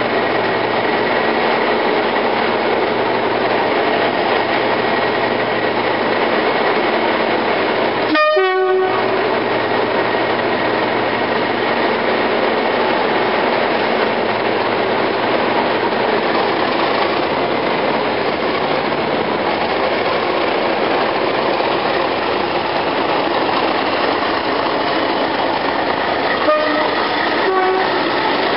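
Class 37 diesel-electric locomotive with its English Electric V12 engine running steadily and pulling away. Its two-tone horn sounds briefly about eight seconds in and again near the end.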